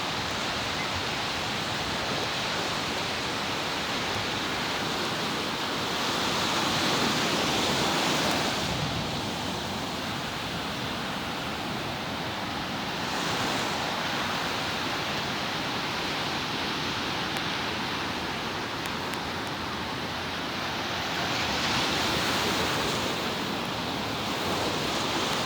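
Ocean surf washing ashore: a steady rush of water noise that swells and eases every several seconds.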